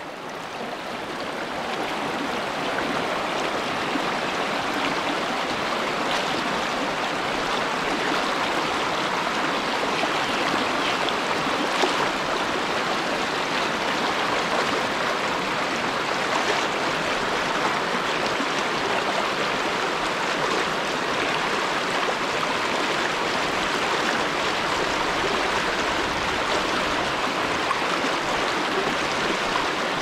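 Shallow mountain river rushing over rocks and riffles, a steady wash of water that fades up over the first couple of seconds.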